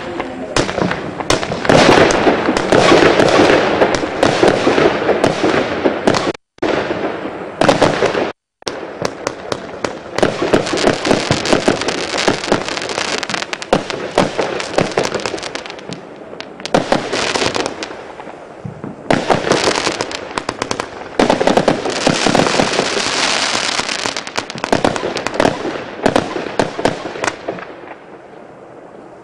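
Consumer fireworks cake firing a rapid volley of shots that burst overhead, one after another, with two brief gaps in the sound about six and eight seconds in, thinning out near the end.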